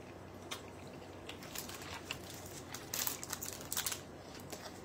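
Plastic candy wrapper crinkling in the hands: a few faint scattered crackles, then a short run of louder crinkling about three seconds in.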